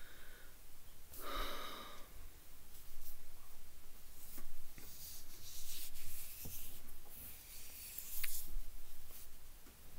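Soft rubbing and brushing noises from a hand stroking a dog's fur close to the microphone, coming in several short bursts, with a short breathy sound about a second in.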